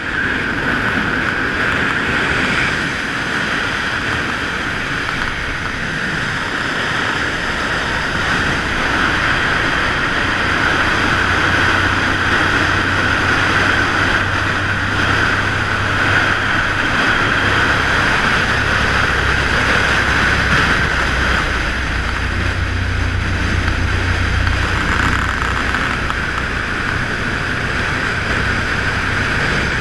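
Suzuki V-Strom motorcycle cruising at steady highway speed: a steady rush of wind noise over a low V-twin engine hum, the hum growing stronger about a third of the way in.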